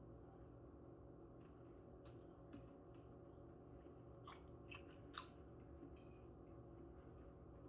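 Faint chewing while a dumpling is eaten, with a few soft short clicks, the loudest about five seconds in, over a low steady room hum.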